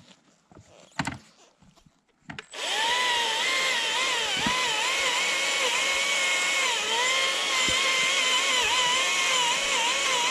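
A Stihl MSA140C 36-volt battery chainsaw starts abruptly about two and a half seconds in, after a few light knocks. It then runs steadily with a high whine whose pitch dips again and again as the chain bites into the wood.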